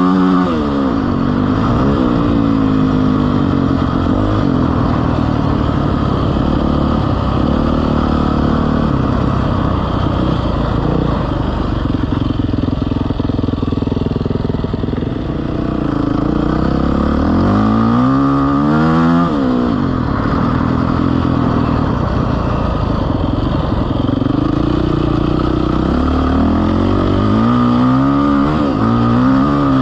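A vehicle engine running under load, revving up and easing off repeatedly, its pitch climbing sharply about eighteen seconds in and again near the end.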